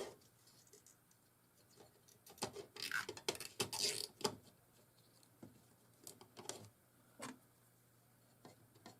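Light clicks and scratching from hands handling a circuit board and small parts at close range: a cluster of scratchy rustling a few seconds in, then a handful of separate small clicks.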